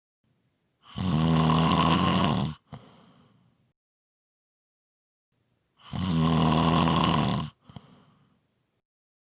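Strong snoring: two long, loud snores about five seconds apart, each followed by a shorter, softer breath.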